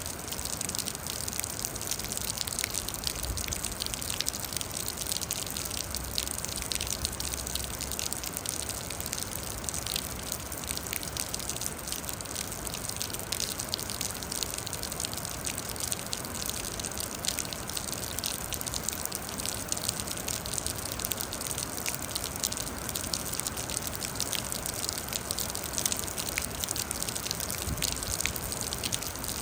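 Steady rain: an even hiss with many small drops ticking sharply through it.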